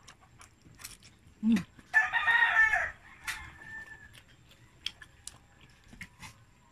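A rooster crows once, about two seconds in, for about a second. Just before it there is a short low sound, and sharp clicks of a fork and spoon on a plate come scattered through the rest.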